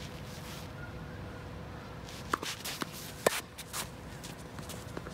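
A tennis racket striking the ball with a sharp crack a little over three seconds in, with a few lighter clicks and shoe scuffs on the court just before and after it.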